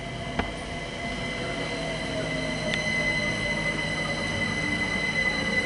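London Overground Class 378 electric multiple unit running into the platform and slowing, its motor whine falling slowly in pitch over a rumble that grows louder. A steady high squeal sits above it, with a single click about half a second in.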